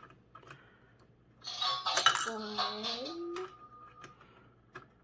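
Plastic toy coins clicking and clattering as they are pushed into the coin slot of a Ryan's World toy vending machine, with the loudest clatter in the middle. A short wordless voice sounds at the same time.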